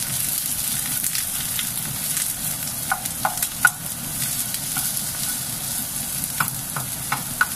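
Sliced onion, garlic and ginger sizzling in hot oil in a nonstick frying pan, stirred with a plastic spatula. The steady sizzle is broken by short clicks of the spatula against the pan, a few about three seconds in and several more near the end.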